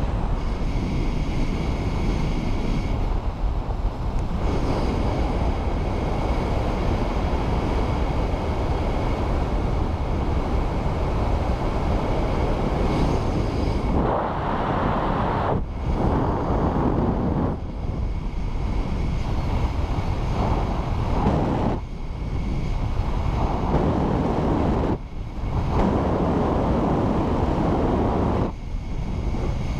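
Wind rushing over the microphone of a paramotor in an engine-out glide. It swells and drops, with several brief lulls in the second half. A faint, steady high whine shows through at the start and near the end.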